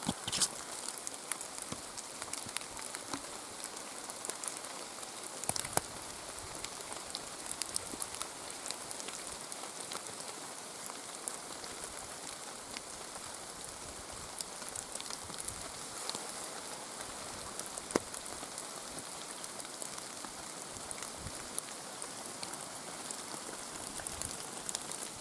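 Steady rain falling, a constant hiss with many scattered drop ticks and a few sharper individual drop hits.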